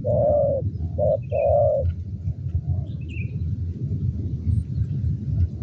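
Spotted doves cooing: a long coo at the start, then a short note followed by a longer coo about a second in, and a fainter coo around two and a half seconds in. Small birds chirp faintly over a steady low rumble.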